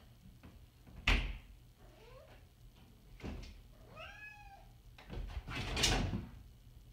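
A brass lever door handle clacking sharply about a second in as a cat hangs from it, working the latch. A cat meows twice in between, short and then longer. Near the end comes a longer rattling clatter as the cat lets go of the handle and drops to the tiled floor.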